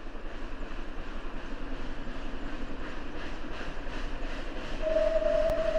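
ČSD class 475.1 steam locomotive working a train, its exhaust chuffing in a quick, even rhythm and growing louder as it approaches. A single steady whistle tone starts near the end.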